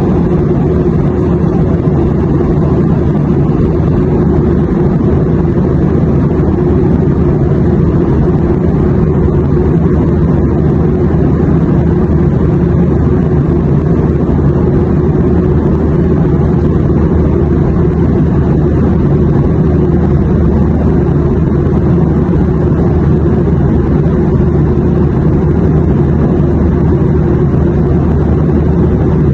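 Airplane cabin noise: a steady, low drone of engines and rushing air that does not change.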